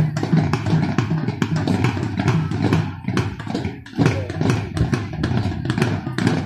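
A drum beaten in a steady, quick marching rhythm, about three beats a second, over background music and crowd noise.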